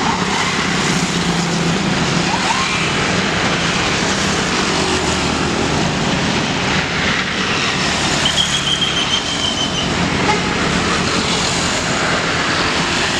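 Tour buses in a convoy driving past: a steady, loud rush of engines and tyre noise. About eight seconds in, a short high-pitched tone sounds for a second or so over the traffic.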